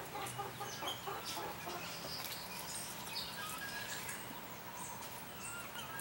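Domestic hen clucking in a quick, evenly spaced run that fades out in the first second or two, over a background of small songbirds chirping and whistling.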